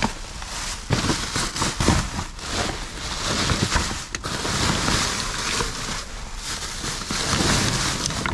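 Rummaging through bags and trash in a dumpster: continuous rustling and crinkling with scattered knocks and clatters.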